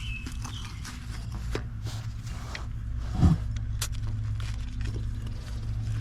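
Small clicks and scrapes of hands working a poly irrigation pipe, barbed coupling and pinch clamp, with one louder thump about three seconds in, over a steady low rumble.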